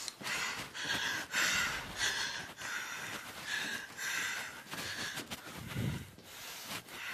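A man breathing hard and fast, loud huffing breaths about twice a second. A dull low thump about six seconds in.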